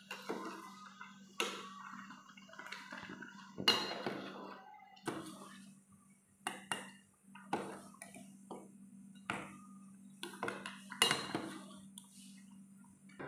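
A metal spoon stirring vermicelli in a stainless steel pot, clinking against the pot's sides about a dozen times at uneven intervals.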